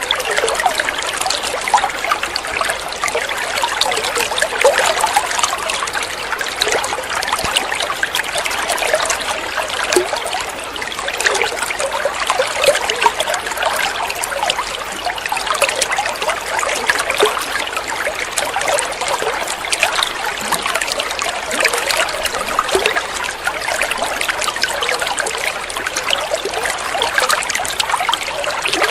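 Running water trickling and splashing steadily, a dense stream of many small splashes with little low rumble.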